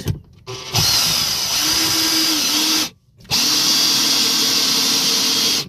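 Cordless drill driving screws into a wooden block, in two runs of about two seconds each, its pitch sagging slightly under load near the end of the first.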